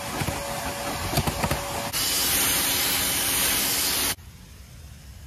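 A cleaning wand worked over a carpet floor mat, with scraping clicks over a steady machine hum. About two seconds in comes a loud, even spraying hiss that cuts off suddenly just after four seconds, leaving only a faint hiss.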